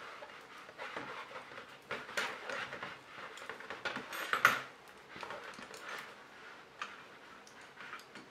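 Knitting needles clicking and tapping against each other as stitches are purled, with the soft rustle of wool yarn. The taps come irregularly, and the loudest is about halfway through.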